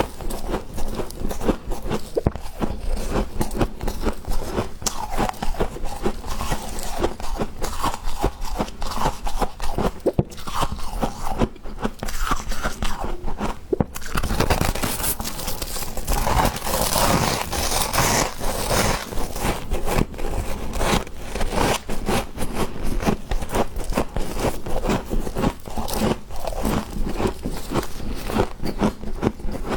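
Freezer frost being bitten and chewed: dense, continuous crunching with some scraping, the crackle thickening about halfway through.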